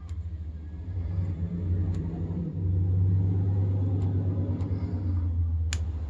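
A low engine rumble swells and fades, like a vehicle going by, with a few faint clicks of a pick working the pins of a brass padlock, the clearest near the end.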